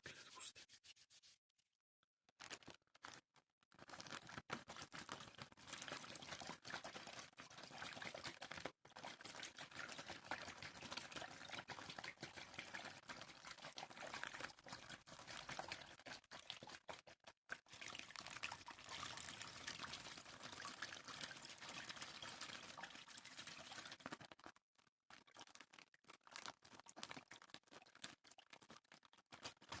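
Water pouring and trickling, a faint continuous splashing. It starts a few seconds in, breaks off briefly near the end, then carries on more softly.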